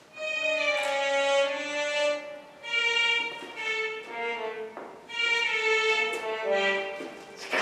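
Violin music playing slow phrases of held notes, each a couple of seconds long with short breaks between.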